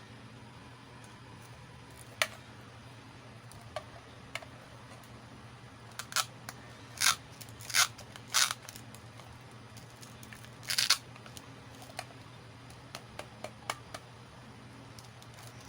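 Miniature plastic toy pieces being handled: scattered light clicks and taps, with several short, louder rustling scrapes between about six and nine seconds in and one more near eleven seconds.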